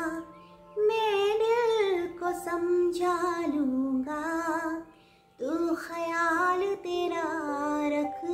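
A woman singing a slow Hindi film-song melody with vibrato, in phrases broken by short pauses about half a second in and just before five seconds in.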